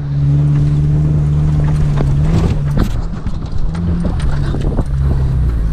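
Off-road vehicle's engine running at low speed over rough ground: a steady low drone that shifts pitch about halfway through and again near the end. Irregular knocks and rattles come through as the vehicle crawls along the rutted track.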